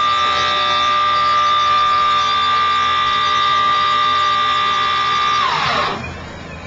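RC model tug boat giving a steady electric whine of several tones at once, which drops quickly in pitch and stops about five and a half seconds in, leaving a low hum.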